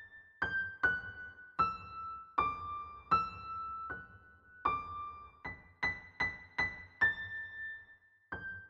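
Background music: a slow piano melody of single notes struck one after another, about two a second, each left to ring and fade.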